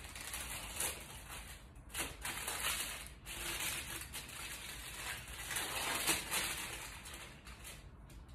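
Paper wrapper of a sterile glove pack rustling and crinkling as it is unfolded and handled, with a few sharper crackles, dying down near the end.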